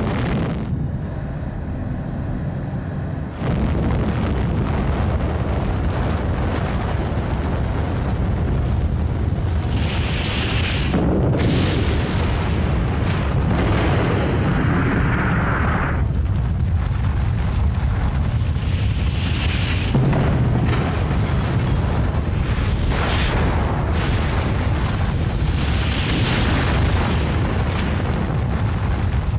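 Dramatised atomic-bomb blast: a continuous heavy, deep rumble with rushing blast-wind noise. It jumps louder about three and a half seconds in and surges several times after that.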